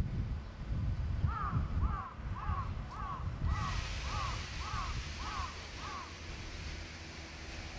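A bird calling nine times in a row, about two short calls a second, over a low rumble. A steady hiss comes in suddenly about halfway through.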